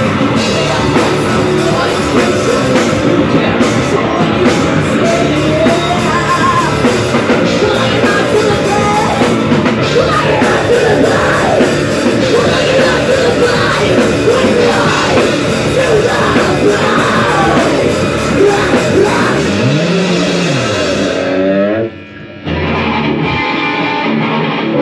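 Live rock band playing loud: a woman singing over electric guitar, bass guitar and drums. Near the end the full band cuts out suddenly and a thinner guitar part carries on.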